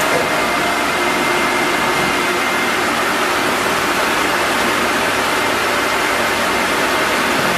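Fully automatic wood lathe running: a steady, loud machine noise with a faint high whine held throughout.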